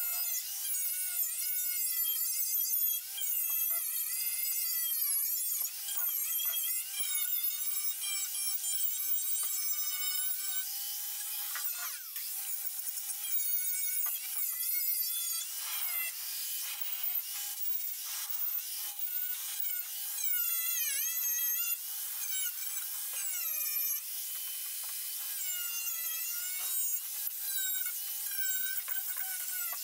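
Wire wheel on a power tool scrubbing surface rust off a steel body panel down to bare metal. Its whine wavers up and down all the way through as the load on it changes.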